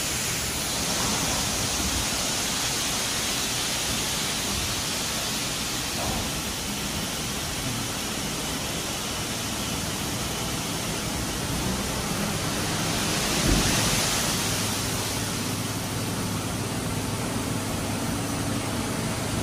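Grain pouring out of a tipped trailer's tailgate onto a steel intake grating, a steady dry hiss like rushing water. A low steady hum joins underneath partway through.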